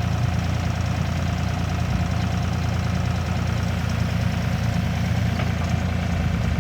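Engine of a heavy construction machine running steadily, a low, even drone.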